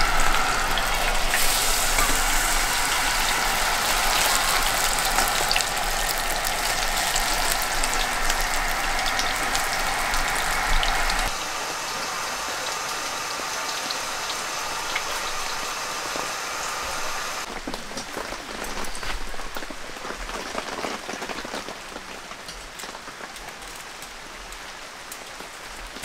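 Food sizzling and crackling in a pan: a dense hiss full of tiny pops. It changes abruptly about eleven seconds in and again a few seconds later, then grows quieter.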